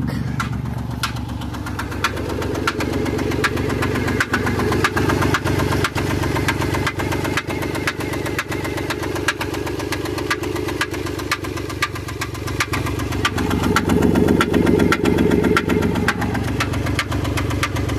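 A 2004 Chrysler Pacifica's 3.5-litre V6 runs with a sharp, repeated tick from the top of the engine. It gets louder for a few seconds near the end. The owner, with no fault codes showing, wonders whether the tick is a rocker arm, a lifter or a misfire.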